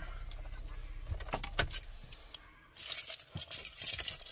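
A car's idling engine hums low and fades out about a second and a half in, with a few sharp clicks. Then a bunch of car keys jangles for about a second and a half near the end.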